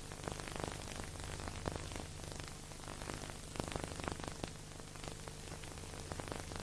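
Steady hiss with frequent crackles and clicks over a low hum: the surface and transfer noise of a silent film's empty soundtrack.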